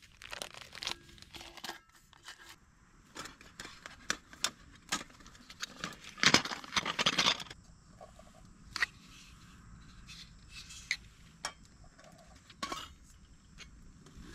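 Titanium camp cups and cookers being handled and fitted together: scattered light metallic clinks and knocks, with a louder stretch of clattering about six to seven seconds in.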